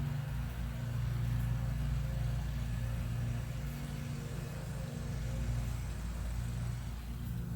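Gas forge running: a steady low rumble with a faint hum.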